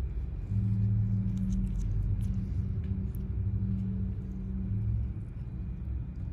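A low steady hum over a background rumble, starting about half a second in and stopping about five seconds in, with a few faint clicks.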